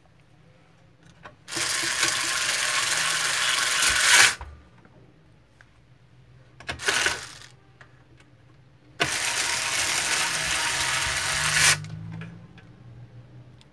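Small electric screwdriver driving screws into a laser printer's gearbox housing: two runs of about three seconds each, getting louder just before each stops as the screw seats, with a short burst in between.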